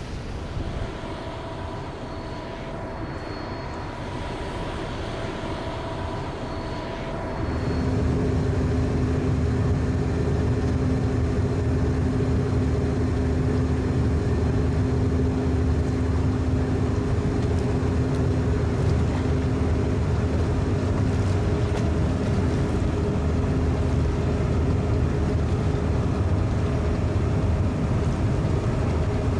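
Cruise ship's engine and machinery drone as she passes close by: quieter at first, then about seven seconds in a steady low rumble with a steady hum sets in and holds.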